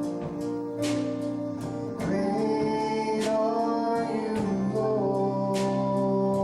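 Gospel worship music: held chords that change about two seconds in and again after four seconds, with occasional sharp percussive hits.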